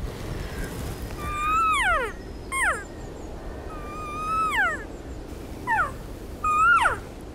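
Elk cow-call mews: five high calls in about six seconds, long and short in turn, each holding a note and then sliding sharply down in pitch, used to call a rutting bull elk in.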